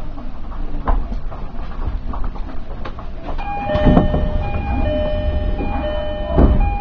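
Commuter train running over pointwork, its wheels clicking and knocking on rail joints, with two heavier thumps. From about halfway an electronic chime of steady alternating notes plays over the running noise.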